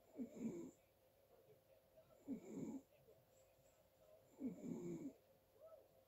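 Snoring in sleep: three snores evenly spaced about two seconds apart, each a short pitched breath lasting about half a second.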